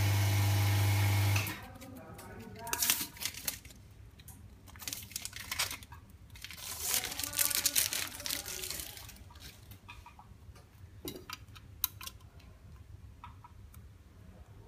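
A loud steady electrical buzz that stops about a second and a half in, followed by crinkling and tearing of thin plastic film as OCA adhesive sheet and its protective liner are handled and peeled, with scattered small clicks.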